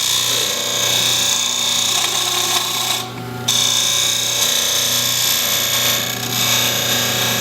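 CNC router spindle running and cutting into wood: a steady hum under a loud, hissing cutting noise. The cutting noise briefly drops out for about half a second around three seconds in, then resumes.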